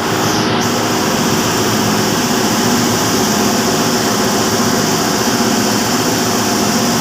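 Waukesha engine-driven Ariel reciprocating gas compressor running: a loud, steady machinery noise that does not change.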